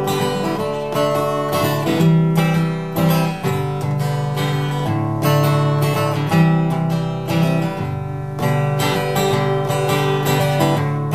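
Epiphone Masterbilt DR-500 dreadnought acoustic guitar strummed in a steady country rhythm, chords ringing between strokes.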